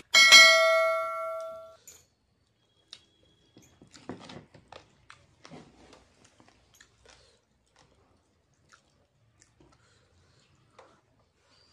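A bright chime rings once about a quarter second in and fades away over about a second and a half: the notification-bell sound effect of an on-screen subscribe-button animation. Later come faint, scattered sounds of eating noodles by hand and chewing.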